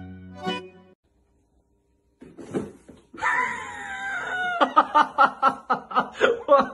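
A person's high wavering scream, then hard laughter in quick bursts of about three a second, after a second of silence.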